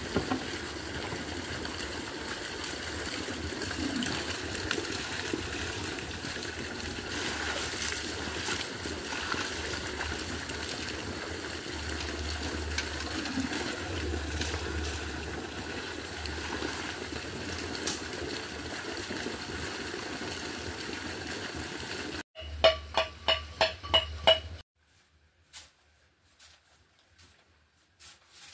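Water running and splashing steadily, fed from a hose, with a low hum underneath. About three-quarters of the way through it cuts off abruptly. A short run of about six loud pulsing tones follows, then near quiet with faint scattered swishes.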